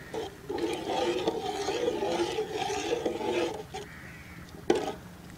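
Slotted metal spatula stirring rice through boiling spiced water in an aluminium pot, scraping and swishing for about three and a half seconds, then a single sharp knock near the end.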